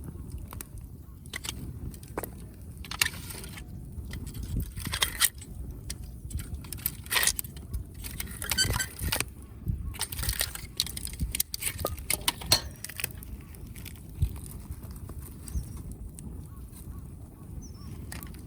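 Firewood burning, crackling and popping irregularly over a steady low rumble.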